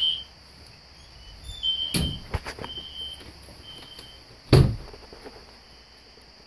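Two doors pushed shut, one thud about two seconds in and a louder one about four and a half seconds in. A System Sensor SpectrAlert Classic fire alarm horn on low volume beeps in half-second pulses in the background, fainter after the second door closes.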